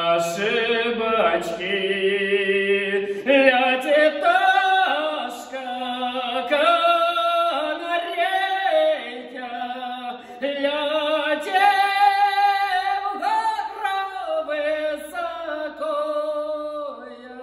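A man singing a Russian folk song unaccompanied in a high, drawn-out voice, holding long notes. His last note fades away near the end.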